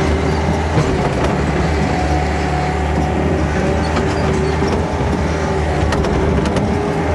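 Tracked excavator's diesel engine running steadily under work, with a steady higher whine over its low drone and a few short knocks.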